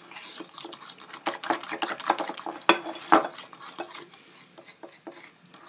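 A fork beating an egg, milk and flour batter in a small ceramic bowl: quick, uneven clicks of the fork against the bowl with a wet stirring sound.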